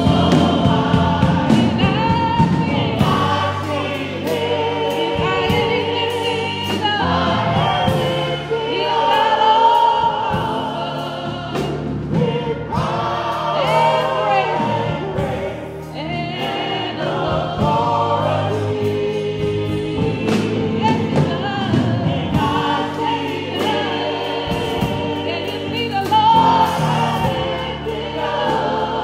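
Gospel choir singing, a woman's lead voice out front with the group answering, over instrumental accompaniment with a steady bass and drums.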